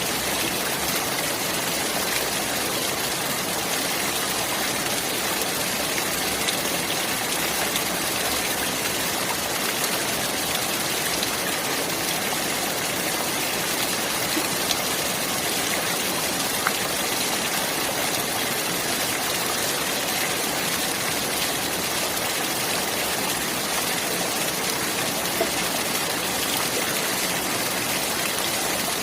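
Clear water running steadily, an even rushing hiss that never breaks or changes.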